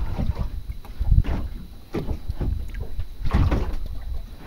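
Water slapping and splashing against a small boat's hull in an irregular rhythm, with a low, uneven rumble of wind on the microphone.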